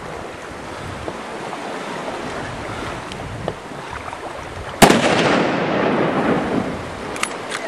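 A single hunting-rifle shot fired at a brown bear about five seconds in, followed by a long rolling echo, over a steady background hiss.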